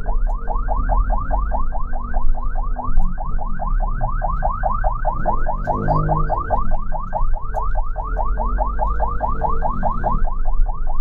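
Ambulance siren in fast yelp mode: a quick rising wail repeating about six times a second, over a steady low rumble.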